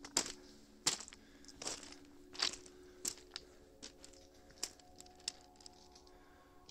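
Footsteps crunching on a path of loose stones dusted with snow, about one step every two-thirds of a second, stopping about five and a half seconds in.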